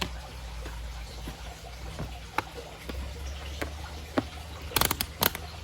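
Scattered light clicks and taps from handling small objects, with a quick cluster of clicks about five seconds in, over a steady low hum.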